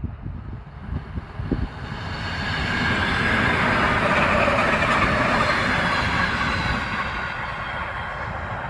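ER2T electric multiple unit running past on the rails; its rumble and rail noise swell over the first few seconds, then fade slowly. Low buffeting on the microphone in the first second and a half.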